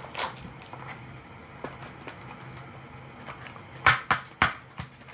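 Quiet handling of a plastic toy tub and its foil wrapper, with faint crinkles and clicks. Near the end come three or four sharp knocks as the plastic tub is handled against the wooden table.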